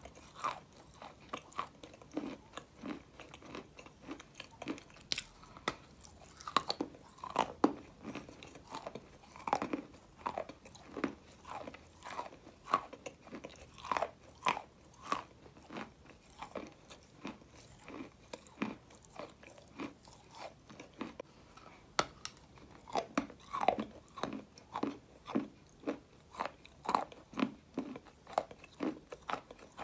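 A mouthful of dry white clay being chewed close to the microphone: a steady run of sharp, gritty crunches, about two a second.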